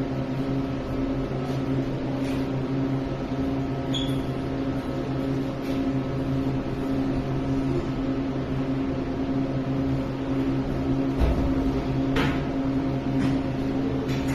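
A motor or engine running steadily with an even hum, with a few short knocks or clicks over it.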